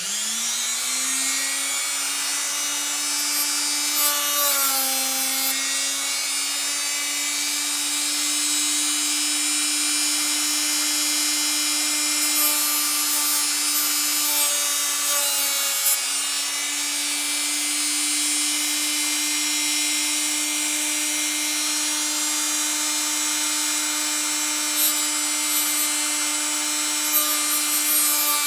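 Rotary tool with a small sanding drum switched on, rising to speed within about a second and running steadily. Its pitch sags briefly twice, about 4 seconds in and again around 16 seconds, as the drum takes load sanding a flat onto a 4 mm wooden dowel, with a hiss of abrasive on wood.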